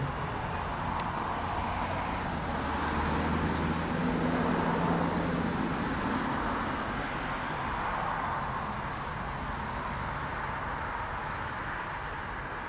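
Steady rumble of vehicle noise with a low engine hum, swelling a little about four to five seconds in.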